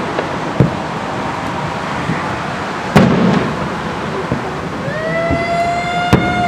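Aerial fireworks going off: scattered bangs, the loudest about three seconds in. For the last second and a half a steady whistle sounds.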